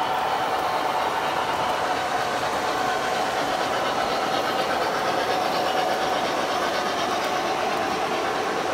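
Model freight train rolling steadily along its track, giving an even clatter of wheels and cars over a steady electric motor hum.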